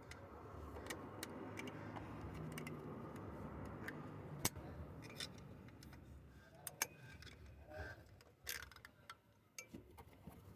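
Faint, scattered metallic clicks and light scraping from circlip pliers working a snap ring off an AC compressor pulley, with one sharper click about halfway through.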